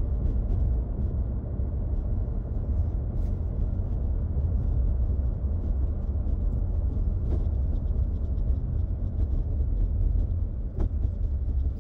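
Car driving on a narrow paved road, heard from inside the cabin: a steady low rumble of engine and tyre noise, with a few faint ticks.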